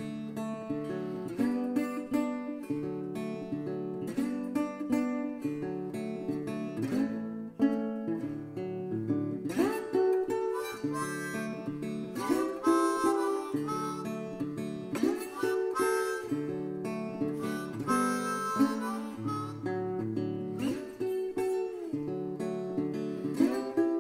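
Background music: acoustic guitar strumming chords under a harmonica melody.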